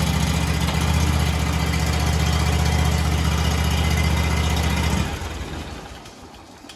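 John Deere lawn tractor's small gasoline engine running steadily just after firing up, a sign that the new starter solenoid has cured the no-start. About five seconds in it is switched off and dies away.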